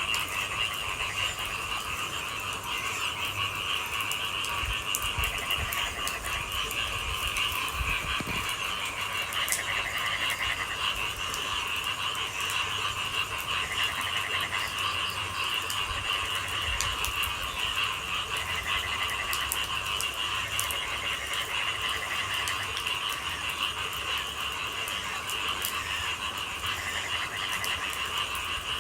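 Night chorus of frogs calling steadily, with short trills breaking in every few seconds.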